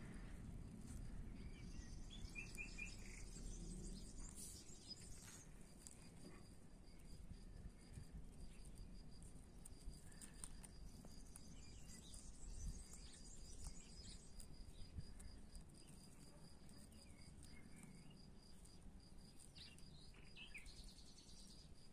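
Faint outdoor ambience dominated by an insect, cricket-like, chirping in an even, rapid series of high pulses. A few brief bird chirps come in near the start and near the end, with some faint clicks.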